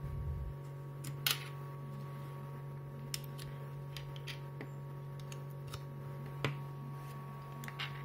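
Scattered sharp clicks and taps of USB plugs and small plastic meters being pulled out, set down and plugged in on a wooden table, the loudest about a second in. A steady low hum runs underneath.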